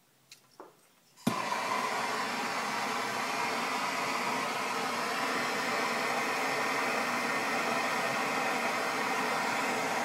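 Handheld gas torch: a couple of faint clicks, then it lights with a sharp click about a second in and burns with a steady, even hiss of flame.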